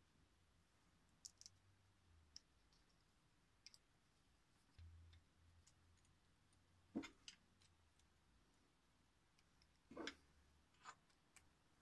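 Faint scattered clicks and light knocks of small 3D-printed plastic axle parts being handled and fitted together, with two louder knocks about seven and ten seconds in.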